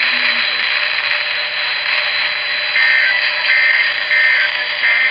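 Emergency Alert System data header: about halfway in, four short, warbling two-tone data bursts come at even spacing, the digital code that opens an alert. They play over steady hissing radio static.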